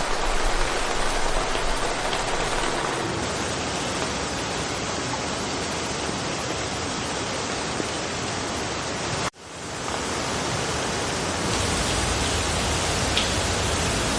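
Steady hiss of rain falling through a forest. The sound cuts out for an instant about nine seconds in, then returns.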